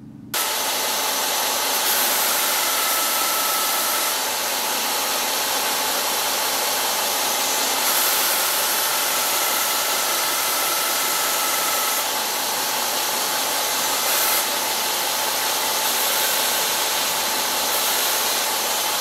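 Belt grinder running, its abrasive belt grinding a steel piece held against it: a loud, steady hiss with a faint steady whine. It cuts in suddenly right at the start.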